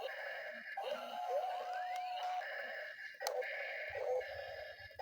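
Playful electronic music: repeating bleepy tones with rising whistle-like slides and a couple of sharp clicks.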